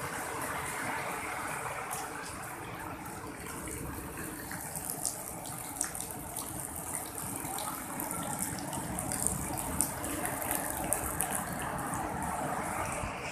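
Sea waves breaking and washing up a sandy beach: a steady rush of surf, with light crackling from about four seconds in.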